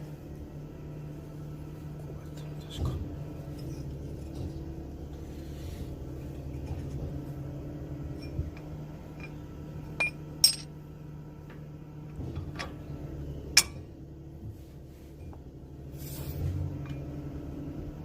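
A steady engine hum with several sharp metallic clinks, two close together about ten seconds in and another a few seconds later.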